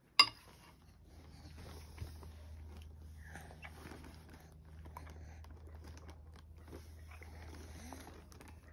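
Baby eating oatmeal off a spoon: faint wet mouth and chewing sounds with small clicks, over a steady low hum. A sharp click right at the start is the loudest sound.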